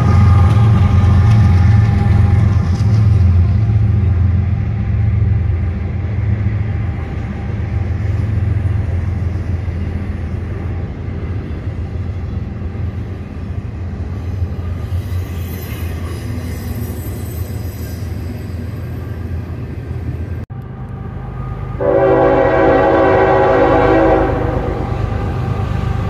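Diesel freight train passing close by: the locomotives' low engine rumble gives way to the steady rolling noise of double-stack container cars. After a sudden break, a locomotive horn blows a single chord of several tones for about two seconds, a few seconds before the end.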